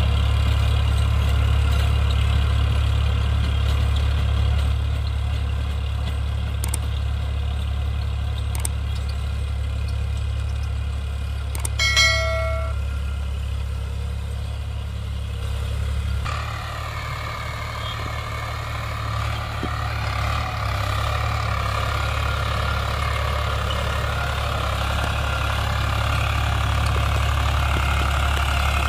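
Eicher 551 tractor's diesel engine running steadily as it drives a rotary tiller through a field, growing fainter as the tractor moves away, then louder again after an abrupt change about sixteen seconds in. A short ding sounds about twelve seconds in.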